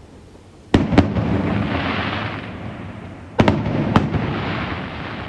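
Fireworks going off: two sharp bangs, then a long crackling hiss that slowly fades, and about two and a half seconds later another pair of bangs followed by the same fading crackle.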